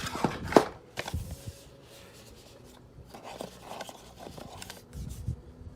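Handling of a boxed product and its packaging: a few sharp clicks and taps at the start, then soft rubbing and rustling, and a low bump near the end.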